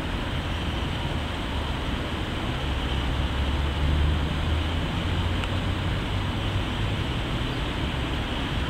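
Motorcycles passing close by at low speed, their engines a low rumble that swells about four seconds in and then fades, over a steady background hiss.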